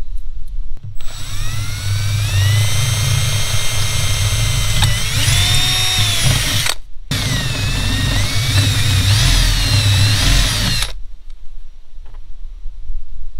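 Milwaukee cordless drill drilling a hole in the awning's metal rail for a guy-line eyelet. The motor whine rises in pitch as it spins up and wavers with the load, breaks off briefly about seven seconds in, then runs again until it stops near the end.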